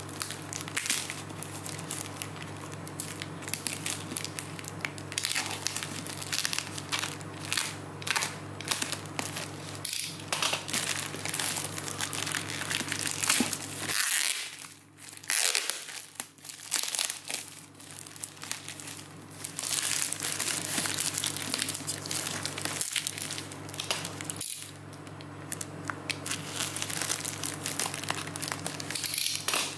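Plastic packaging being crinkled and torn open by hand, with a utility knife slicing through the plastic wrap and tape on a cardboard box; irregular crackling rustles throughout, easing off briefly about halfway. A steady low hum sits underneath.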